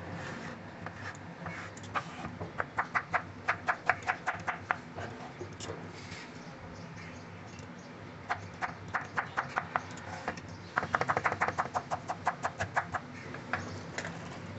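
Kitchen knife tapping on a wooden chopping board as a peeled mango is diced, in three quick runs of light strokes, the last run the fastest.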